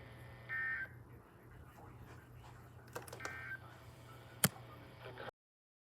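Two short bursts of Emergency Alert System (SAME) two-tone digital data, the end-of-message code that closes a broadcast alert, about three seconds apart. A few clicks fall between and after them, the loudest about four and a half seconds in, and the sound cuts off abruptly near the end.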